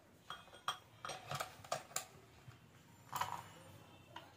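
Drill bit being pushed into the SDS chuck of a Zebra Z-R26 rotary hammer drill: a run of sharp plastic-and-metal clicks in the first two seconds, then a longer knock about three seconds in.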